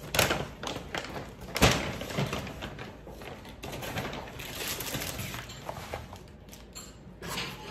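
Paper takeaway bag and food packaging rustling and being handled, an irregular run of crinkles and light knocks, the sharpest just after the start and about a second and a half in.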